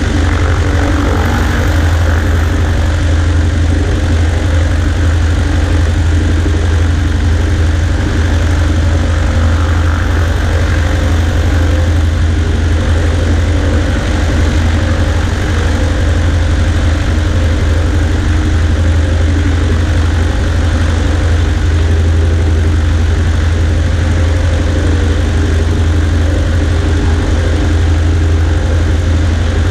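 Cessna 140A light aircraft's piston engine and propeller running at a steady, unchanging drone.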